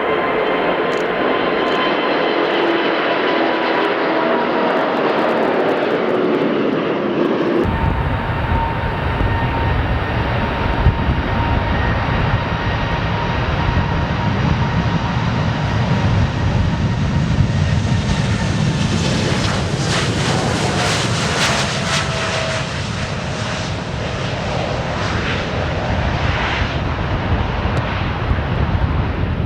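Loud, steady aircraft engine noise with a faint whine that slowly falls in pitch. A deep low rumble comes in suddenly about eight seconds in.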